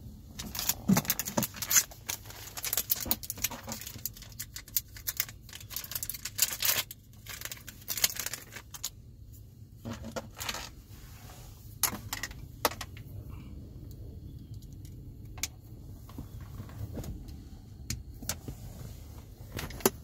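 Small hard objects being handled close to the microphone: irregular clicking and light jangling, busy through the first nine seconds or so, then a few scattered clicks over a low steady hum.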